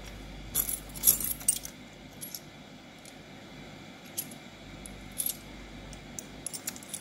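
A bunch of metal keys on a ring jangling and clinking as they are handled, in a series of short, separate clinks.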